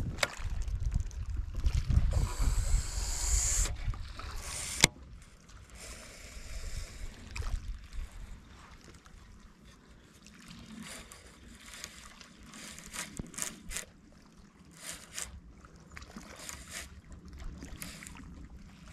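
Wind rumbling on the microphone for the first few seconds, cut off by a single sharp click. After that it goes much quieter, with faint lapping of water along a rocky shore and scattered small ticks.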